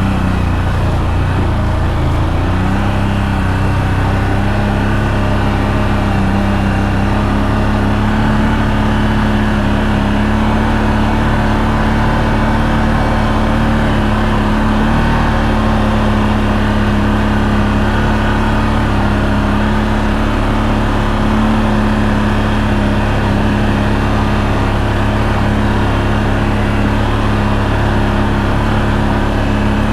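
ATV engine running steadily under load in low gear, climbing a hill in two-wheel drive.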